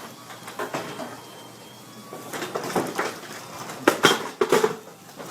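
Hormann garage door opener driving a vinyl sectional garage door on nylon roller wheels: a steady motor hum with irregular clicks and rattles from the door, and the loudest knocks about four seconds in. The run is smooth.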